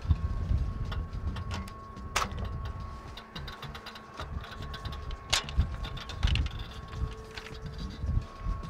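A few sharp clicks and knocks from a caravan awning's support leg being unclipped from the awning fascia and swung down into place, the loudest about two and five seconds in, over a low rumble.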